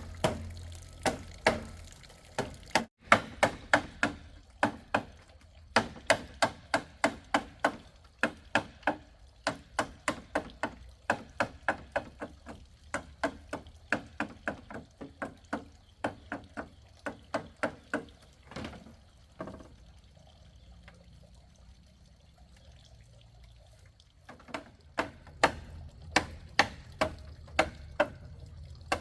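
Rapid series of sharp knocks from a striking tool, about two to three a second, breaking off for about five seconds after the middle and then starting again.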